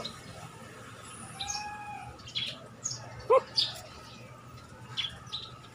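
Small birds chirping in short, scattered calls, with a held call about one and a half seconds in and a short, loud rising squeak about three seconds in.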